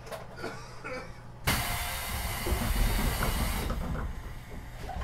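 Compressed air hissing sharply from the pneumatic doors of a JR Central 373 series electric train as they close before departure. The hiss starts suddenly about a second and a half in and lasts about two seconds, with a low rumble beneath it. A few faint knocks come before it.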